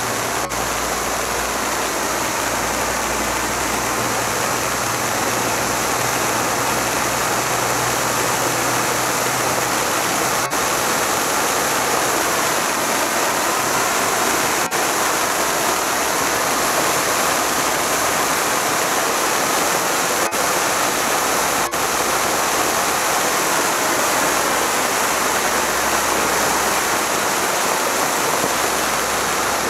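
Jordans Fireworks 'Silver Rain' ground fountain firework burning, its jet of sparks giving a loud, steady rushing hiss.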